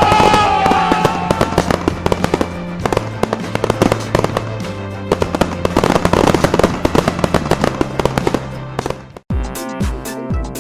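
Fireworks crackling and popping in rapid, dense bursts over upbeat background music. About nine seconds in, everything cuts out for a moment and music with a steady beat starts.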